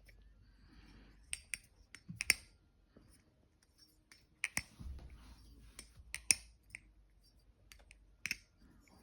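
Balisong (butterfly knife) handles clicking and clacking as the knife is opened, closed and flipped: sharp, irregular clicks, several coming in quick pairs.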